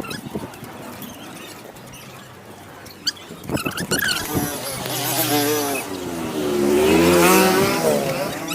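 A motor vehicle's engine passing close by, its pitch wavering, growing louder to a peak about two-thirds of the way in and then falling away; a few light knocks come before it.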